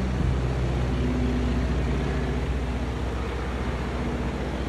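Boeing Stearman biplane flying overhead, its radial engine and propeller making a steady drone that grows slightly fainter toward the end.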